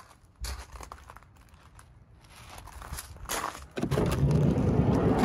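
Handling and rustling noise with scattered knocks as a hand-held camera is carried out of the van. Over the last second and a half comes a loud, low, rumbling rustle, with a sharp knock near the end.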